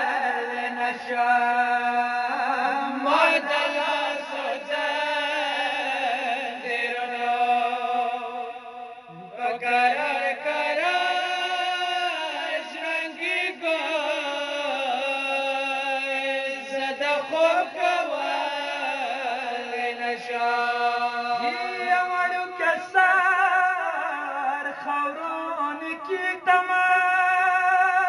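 Men's voices chanting a Pashto noha, a Shia mourning lament, in long held, wavering notes, with a brief break about nine seconds in.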